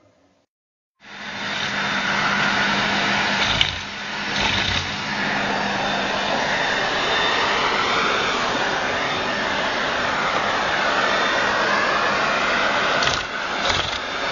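Vacuum cleaner running, starting about a second in after a brief silence: a steady hum with a whine that glides up and down in pitch. A few knocks come a few seconds in and again near the end.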